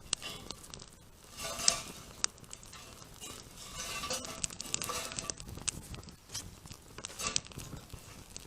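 Metal camp cookware and utensils clinking and scraping, with scattered sharp clicks and brief rustling stretches.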